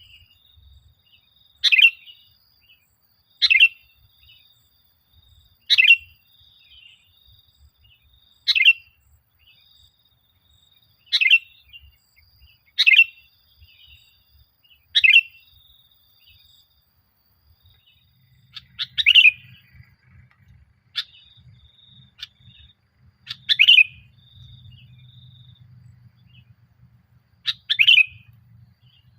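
Sooty-headed bulbul (kutilang) singing in full voice, a short bright call repeated about every two seconds, some eleven in all.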